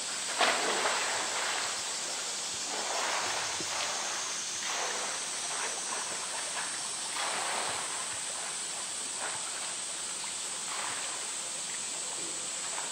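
Pool water splashing and sloshing as a polar bear plays with a floating roly-poly toy and swims. One louder burst comes about half a second in.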